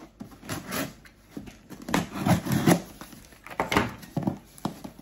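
Cardboard box being cut open with a utility knife: irregular scraping strokes of the blade through packing tape and cardboard, with knocks of the box, the loudest a little after two seconds in.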